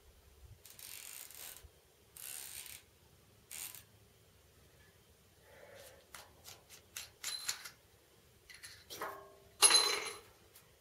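Barrett 99-1 single-shot .50 BMG bolt-action rifle being worked by hand: a few short metal-on-metal scrapes, then a quick run of small clicks. Near the end comes a ringing metallic clank, the loudest sound.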